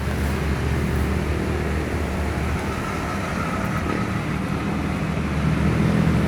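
A motor engine running steadily with a low hum, cutting in abruptly at the start.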